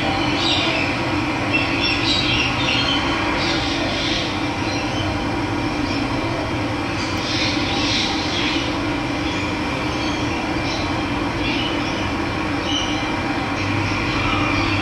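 Running water rushing steadily, with birds chirping now and then over it.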